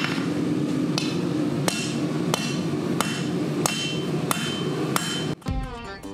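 Rounding hammer striking a red-hot bar of 80CrV2 steel on an anvil, forging the point of a chef's knife: about eight even blows, roughly one and a half a second, each with a short metallic ring, over a steady rushing noise. Near the end the hammering stops and guitar music comes in.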